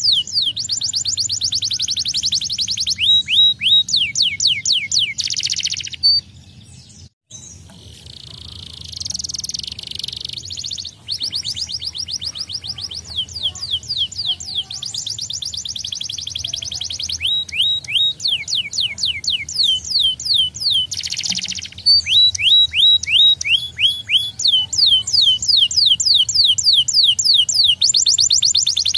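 Canary singing: fast trills of rapidly repeated falling notes, alternating with dense, rolling passages. The song breaks off briefly about six seconds in, then carries on.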